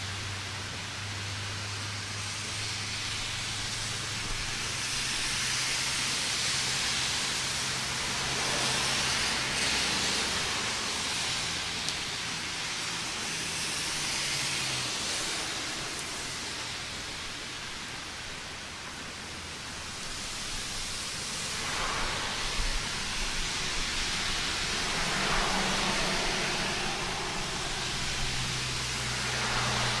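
Steady rain with road traffic: a low engine hum from vehicles waiting that fades out about halfway and returns near the end, and tyres hissing on the wet road, swelling twice as vehicles pass.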